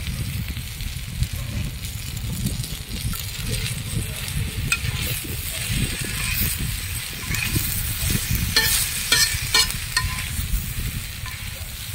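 Chopped mutton liver sizzling in oil with onion and tomato in a flat iron pan over a wood fire, while a metal spatula scrapes and stirs against the pan, the scrapes sharpest around nine seconds in. A steady low rumble runs underneath.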